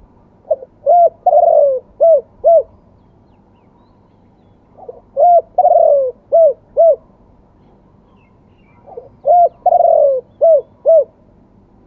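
Spotted dove cooing in three repeated phrases about four seconds apart. Each phrase is a few short coos, one longer falling coo, then two short coos, in the '2 kuk' cooing style prized by Thai dove keepers.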